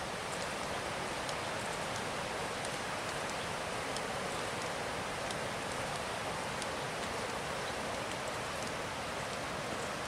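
Steady rushing of the Tat Ton waterfall and its river, heard through the trees.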